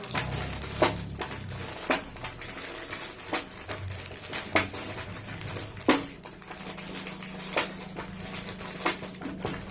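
Plastic snack sachets being handled and torn from their strip: irregular sharp crinkles and crackles of the wrappers, over a low steady hum.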